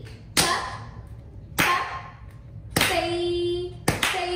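Bharatanatyam Thattadavu practice: sharp rhythmic strikes keeping an even beat of a little under one a second, with a voice holding a chanted rhythm syllable twice near the end.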